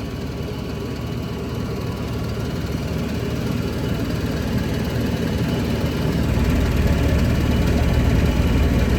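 Goodman gas-fired furnace running with its burners lit and its blower fan on: a steady low rumble and whoosh that grows gradually louder, strongest over the last few seconds.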